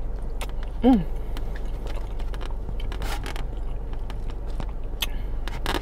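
Mouth sounds of a person eating baked potato from a plastic spoon: soft chewing and a few faint clicks, with a short falling 'mm' about a second in, over a steady low background hum.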